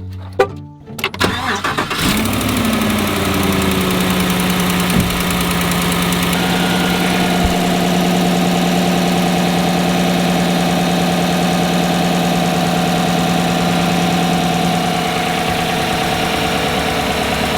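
Pickup truck engine cranking briefly and catching about two seconds in with a quick flare of revs, then settling into a steady idle. The owner takes the exhaust sound for a leaking exhaust manifold gasket on the passenger side.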